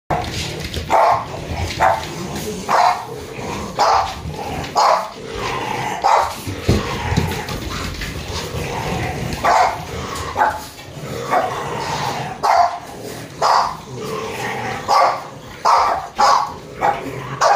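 French bulldog barking in short, loud barks, roughly one a second, with a pause of a couple of seconds about halfway through.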